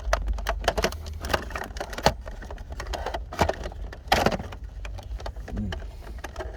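Scattered clicks, taps and light rattles of a car's plastic climate control unit being handled and fitted into the dashboard, with a denser burst of knocks about four seconds in, over a steady low hum.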